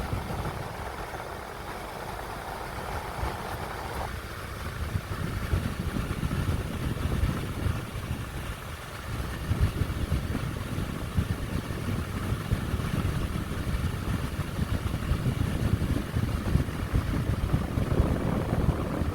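Car engine idling with the air conditioning running: a steady low rumble with blower noise. A mid-pitched hiss drops away about four seconds in, and the rumble grows louder from about nine seconds.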